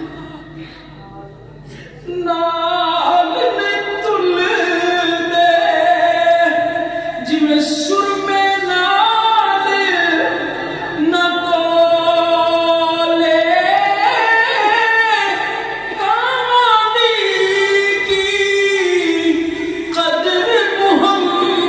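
A solo voice singing an unaccompanied devotional melody in long, wavering held notes. It comes in about two seconds in.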